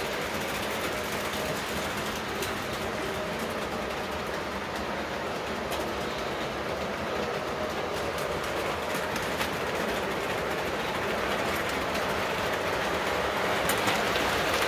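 Lionel O-gauge model trains running on three-rail track: a steady rumble and clatter of wheels on the rails, growing louder near the end as a locomotive and its flatcars come past close by.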